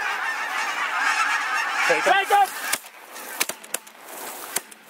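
A huge flock of Canada geese, lessers and honkers, honking in a dense chorus overhead. After a shout about two seconds in, the honking drops away and shotguns fire several times in quick succession.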